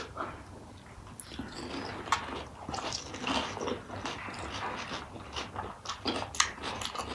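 Two people chewing mouthfuls of pani puri, the crisp fried shells crunching in short, irregular crackles.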